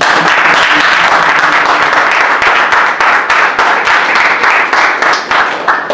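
Audience applauding, many hands clapping at once. It starts suddenly, holds steady, and stops near the end.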